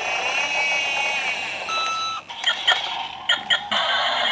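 Electronic sound effects from a toy emergency vehicle's sound unit: a warbling siren, then a short steady beep about two seconds in, followed by a few quick chirps.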